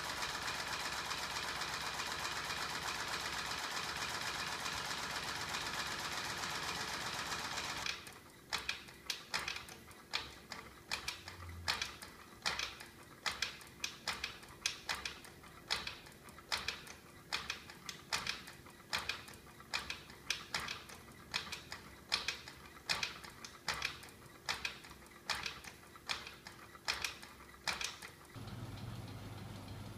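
Small DC electric motor driving a homemade magnet-and-flywheel mechanism: a steady whir for about the first eight seconds, then regular sharp clacking of about one and a half knocks a second. A steady low hum takes over near the end.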